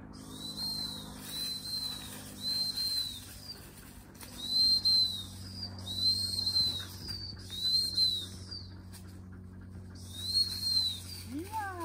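Dog-training whistle blown as a search signal, telling the dog to hunt the ground. It gives seven short, high blasts, each rising a little and falling away: two groups of three, then a single blast after a pause of about three seconds.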